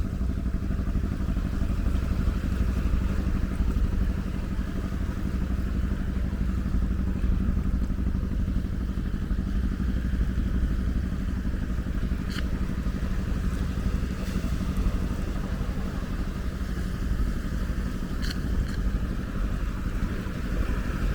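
Ocean waves breaking: a steady, low, rumbling wash of surf, with two faint ticks about halfway and near the end.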